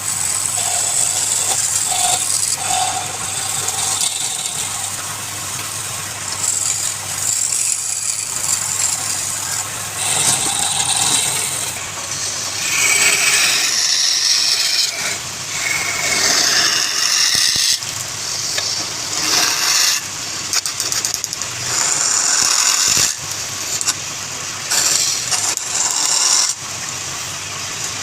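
Wood lathe running while a turning tool cuts the spinning wood: a hissing, scraping cut that comes and goes in stretches of a second or two over a faint steady motor hum.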